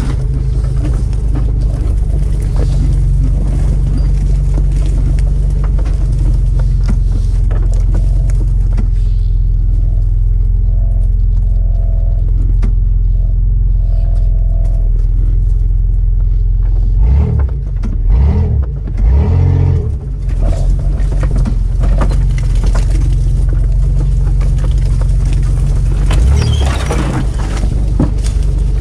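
Mitsubishi Pajero's 3.0-litre V6 engine and drivetrain running steadily while driving off-road, heard inside the cabin as a low, steady drone. A few thumps and jolts from the body and suspension over bumps come about two-thirds of the way in and again near the end.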